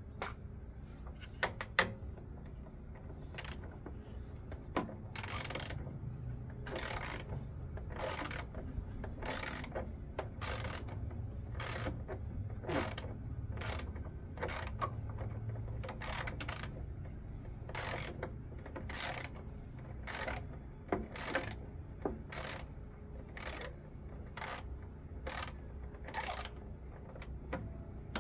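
Hand tool working screws out of a washing machine, with short ratchet-like clicking strokes repeating roughly once a second over a low steady hum.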